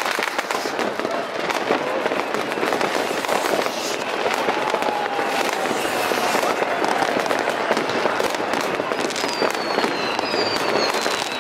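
New Year's Eve fireworks: many rockets and firecrackers going off at once, a dense, unbroken crackling and popping, with a thin falling whistle near the end.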